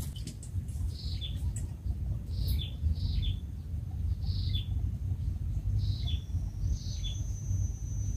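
A bird calling: a short, falling note repeated six times, roughly a second or so apart, over a steady low rumble. A thin, steady high tone comes in near the end.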